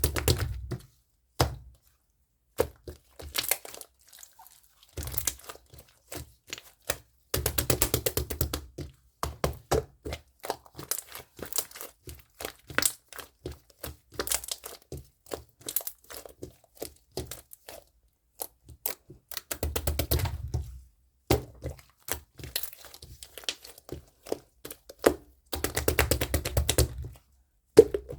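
Close-up crackling and crinkling handling sounds: dense runs of sharp clicks and crackles in bursts of a second or two, with short pauses between.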